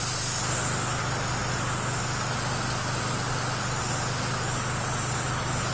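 Hobby airbrush hissing steadily as it sprays, set to low paint and high air, over the steady hum of a small airbrush compressor.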